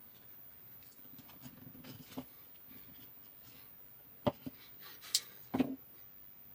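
Small wood chisel of a Swiss Army knife paring and scraping chips from a wooden spoon bowl, with light scratching cuts and several sharp clicks of the tool against the wood, the loudest a few seconds in.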